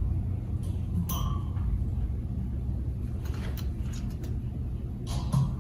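Steady low rumble of background noise, with a few faint light clicks of nuts and washers being handled on the fan's rear-guard studs, the clearest about a second in.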